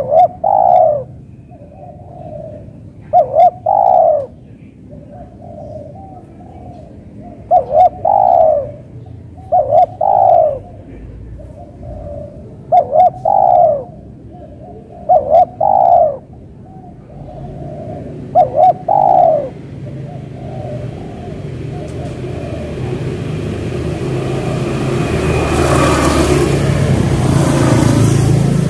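Spotted dove cooing: about seven loud phrases, each two short notes and a longer falling note, every two to three seconds, with softer coos in between. The phrases stop a little past halfway, and a motor vehicle on the road then grows louder toward the end.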